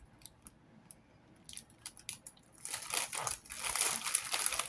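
Small plastic zip-top bags of diamond-painting drills being handled, crinkling. A few light clicks come first, then louder, denser crinkling from about halfway in.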